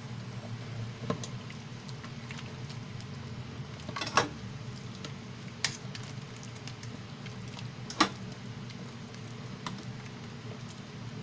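Metal spoon stirring a thick coconut-milk mixture in a stainless steel pot, striking the pot with sharp clinks several times, the loudest at about four and eight seconds, over a steady low hum.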